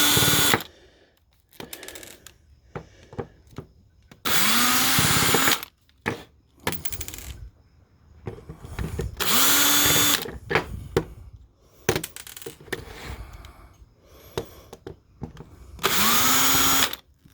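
Power drill-driver backing out screws: the motor spins up and holds for about a second at a time, three times plus the tail of one more at the start. Small clicks and knocks of handling metal parts come in between.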